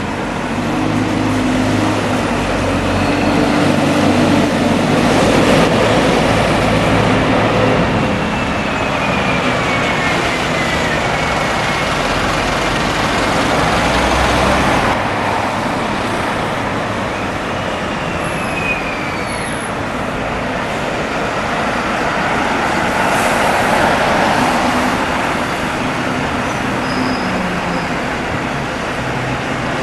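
Street traffic: buses and other road vehicles running past at close range. A heavy engine hum is strongest in the first several seconds, and a couple of faint falling squeals come in the middle.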